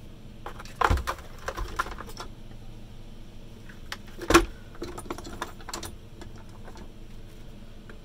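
Hard plastic and metal parts of a Henry vacuum cleaner being handled during dismantling: a run of clicks and rattles about a second in, one loud knock about four seconds in, then a few lighter clicks.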